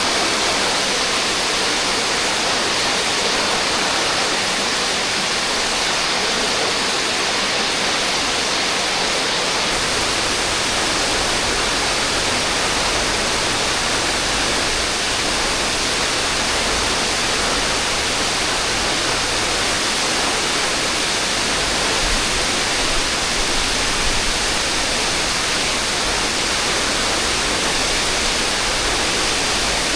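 Waterfall rushing steadily, a dense even hiss of falling water; a deeper low rumble joins it about ten seconds in.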